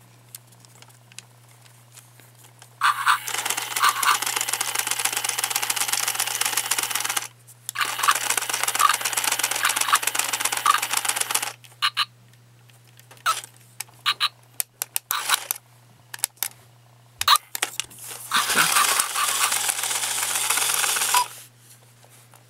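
Tekno robot dog toy's small motors whirring in three bursts of a few seconds each, with plastic clicks and knocks from handling in between.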